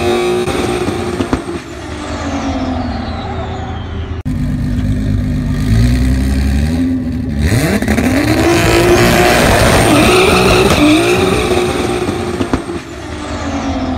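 Opel Calibra drag car at the start line, its engine rumbling deep, then revving up as it launches and accelerates hard down the strip. The pitch climbs in several rising sweeps that break briefly at each gear change, and the sound fades away near the end. In the first couple of seconds another race car's engine is heard dropping away into the distance.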